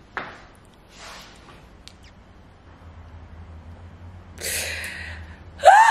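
A woman's breathy exhales and sniffles as she tears up: a few soft breaths, then a longer, louder one about four seconds in. A short rising vocal sound comes just before the end.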